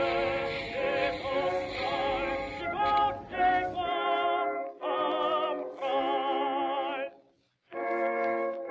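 Background music with operatic singing, long held notes with vibrato. It breaks off briefly near the end and then carries on.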